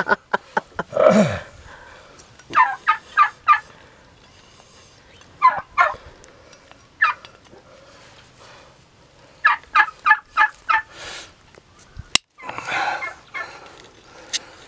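Farmyard fowl calling in several short bouts of quick repeated notes. A few sharp snaps come from hoof nippers cutting the pig's overgrown claws, the clearest about 12 seconds in.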